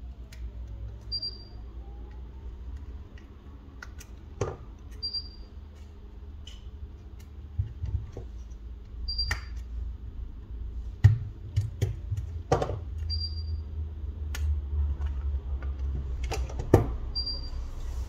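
Small sharp clicks and taps of tools and parts being handled during phone disassembly, over a low rumble. A short, faint high beep repeats about every four seconds.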